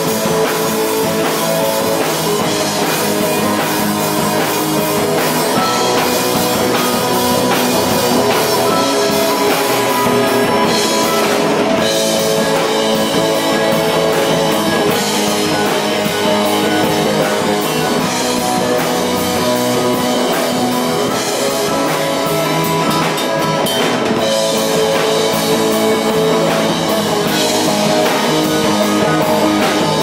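Live rock band playing: electric guitar, bass guitar, drum kit and a Korg PS60 keyboard, loud and steady throughout.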